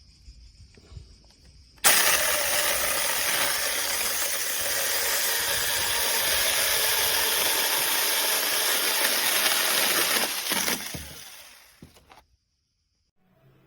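Cordless electric mini chainsaw running: a loud, steady noise that starts suddenly about two seconds in, holds for about nine seconds, then dies away.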